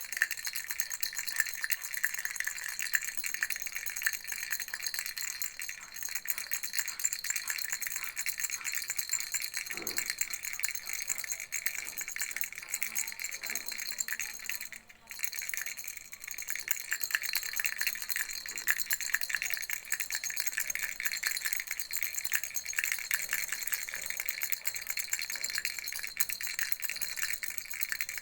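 Baby rattle shaken continuously, a dense rapid patter of small beads rattling inside, with a brief pause about halfway through.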